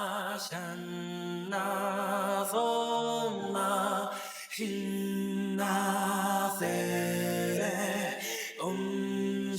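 Ballad theme song: a singer holding a run of long notes with wavering pitch and no clear words, one after another, over soft accompaniment.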